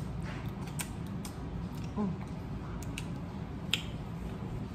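Eating mussels from the shell: a few sharp, isolated clicks and mouth smacks, with a brief murmur about two seconds in, over a steady low hum.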